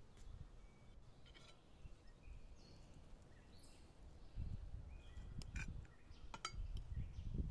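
Metal fork and spoon clinking and scraping against a ceramic plate while pulling apart boiled chicken, with a few sharp clinks, most of them in the second half.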